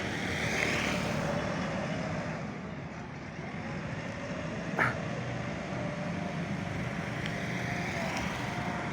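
Backhoe loader's diesel engine running steadily while working, with a faint whine that wavers in pitch. A single sharp clank comes about five seconds in.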